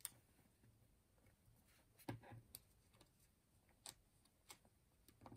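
Near silence with a handful of faint clicks and paper taps from fingers placing and pressing small sticker tabs onto the edge of a planner page.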